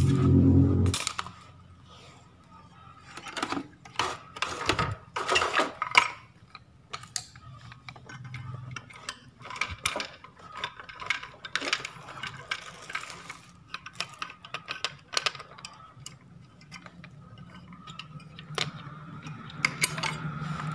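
Scattered metallic clicks, taps and clatter as a TV's main circuit board and its desoldered horizontal output transistor are handled and worked loose from the heatsink. The sounds come in irregular clusters, busiest a few seconds in, around the middle and near the end.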